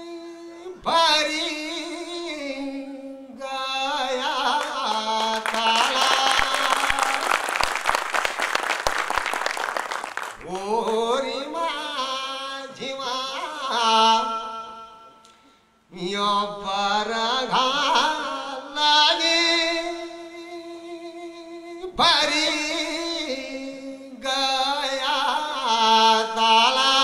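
A man singing a Kumauni nyoli folk song into a microphone. He holds long, drawn-out notes that bend and waver in pitch, in several phrases with short breaks between them. A louder, rougher stretch comes about six seconds in.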